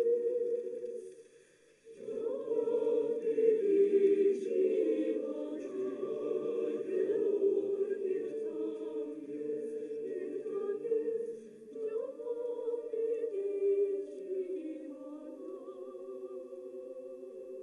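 A mixed choir singing slow, sustained chords. The sound fades out about a second in, and the choir comes in again about two seconds in.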